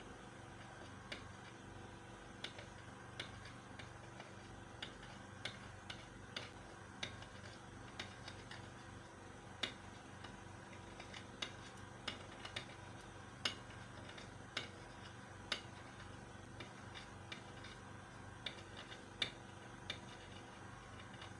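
Faint, irregular clicks and ticks, roughly one a second and uneven in strength, from a soldering iron's tip tapping the work surface as it burns through lace. A steady low hum runs underneath.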